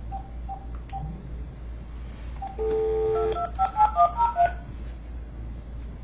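Telephone dial tone held for under a second, then a quick run of touch-tone (DTMF) keypad beeps as a number is dialled.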